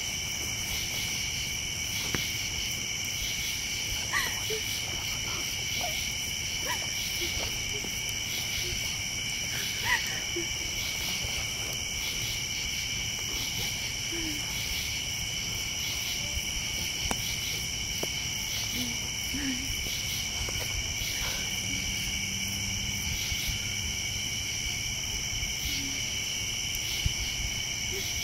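Chorus of night insects such as crickets: a continuous high trilling at several pitches. A few faint clicks and pops sound now and then, the loudest about ten seconds in.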